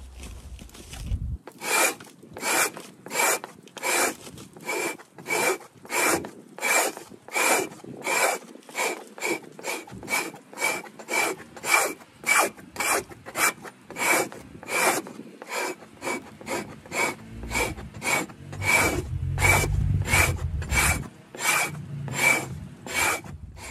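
Axe-head hide scraper rasping down a frozen moose hide stretched on a frame, in steady strokes about two a second with a faint ringing note in each. This crisp scraping is how a hide frozen hard enough for frost scraping should sound; anything less and the scraping is not working as well.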